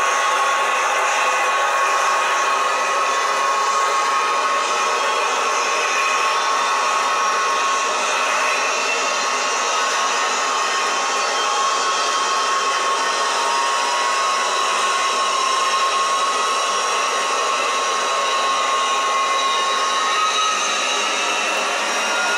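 Simulated jet turbine sound from a Model Sounds Inc onboard sound system in an RC MiG-29, played through the model's small speaker: a steady turbine whine over a rushing hiss with no deep bass, and a few of the whine tones gliding slowly upward in the later part.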